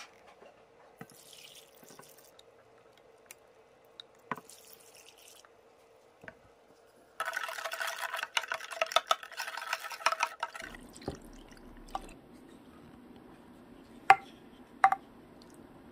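Wooden spatula stirring soy-sauce pickling brine in a glass dish, scraping and swishing for a few seconds from about seven seconds in, to dissolve sugar that has not yet dissolved. Small clicks and taps come before it, and two sharp knocks come near the end.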